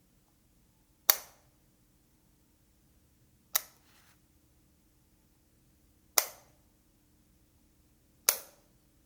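Wall light switch clicked four times, a sharp snap every two to two and a half seconds, each dying away quickly, over a faint steady hum.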